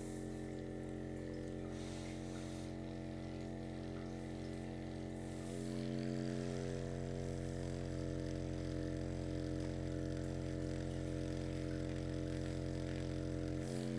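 Electric vibration massager running with a steady low hum as it is worked over the patient's muscles to loosen a stiff area. The hum gets a little louder about five and a half seconds in.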